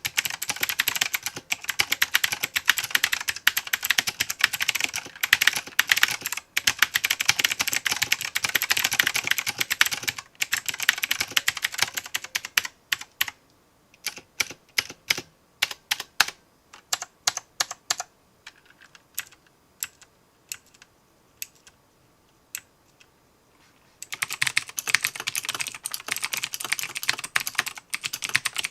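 Typing on clicky mechanical keyboards in a side-by-side sound test: a budget LingBao keyboard with clone Cherry MX Blue switches and a Razer BlackWidow Chroma. Fast, dense clicking for about the first twelve seconds thins to single key presses, grows faint for several seconds, then turns to fast typing again about four seconds before the end.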